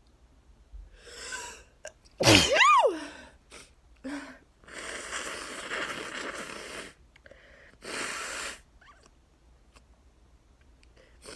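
A person's sneeze about two seconds in, a sharp breath in followed by a loud voiced 'achoo' that sweeps up in pitch and falls back. A long nose blow of about two seconds follows, then a shorter blow near eight seconds. This is part of an allergic sneezing fit set off by freshly cut grass.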